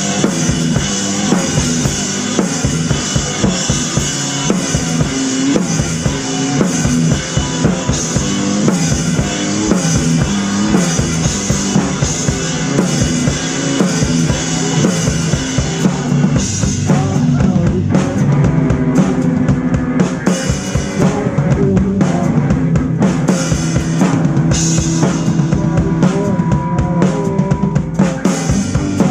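Rock band playing, loud, with a busy drum kit to the fore: bass drum and snare hits over steady low bass and guitar notes.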